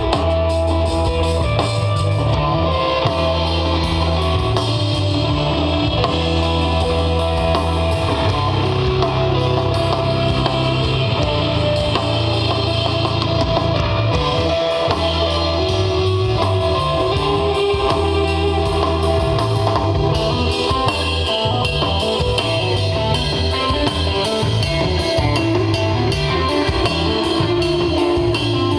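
Live desert rock band jamming: electric guitar lines held and repeated over steady bass notes and a drum kit with cymbals, loud and continuous.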